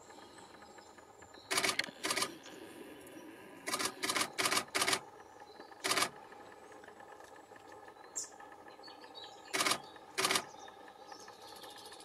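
Great spotted woodpecker, a female, pecking at a tree trunk: about ten sharp taps on wood, irregularly spaced, with a quick run of four a little past the middle.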